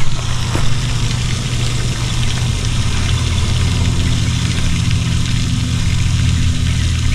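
Steady low mechanical hum of a motor running, with a light hiss over it.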